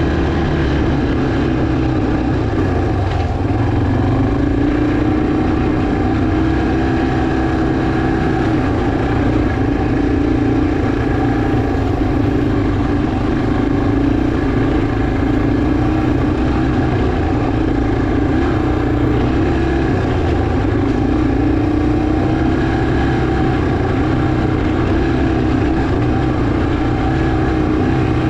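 Yamaha TT-R230 dirt bike's single-cylinder four-stroke engine running steadily while riding, its pitch rising and falling a little with the throttle.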